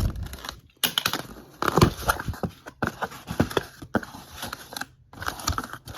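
Cardboard box being cut and torn open by hand, with the cardboard and packing inside rustling, crackling and scraping in quick bursts.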